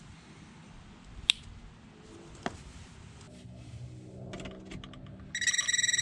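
Two sharp clicks, then near the end a non-contact voltage pen tester held to a newly wired 120 V outlet starts beeping: a rapid, high-pitched pulsing beep that shows the outlet is live.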